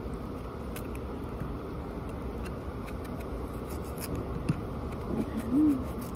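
A kitchen knife peeling and cutting a green mango, giving soft scraping and small ticks against a steady background noise. Near the end a short hummed voice sound rises and falls.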